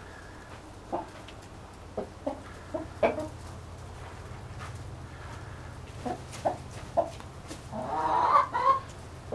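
Domestic chickens, hens and a rooster, clucking: short, scattered clucks, with a louder, longer drawn-out call about eight seconds in.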